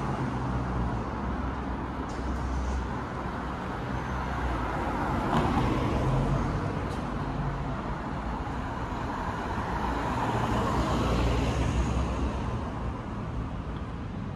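City street traffic: cars driving past with a steady low engine hum, growing louder as vehicles pass about five seconds in and again near eleven seconds.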